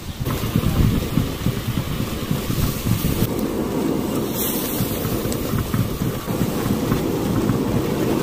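Egg-and-sauce mixture sizzling on a hot iron griddle while a metal masher presses and scrapes through it, over a steady low rumble.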